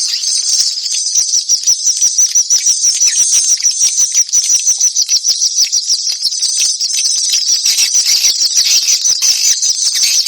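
Swiftlet lure call: a continuous, high-pitched chattering twitter of swiftlets, pulsing at about six or seven chirps a second, played as a recording.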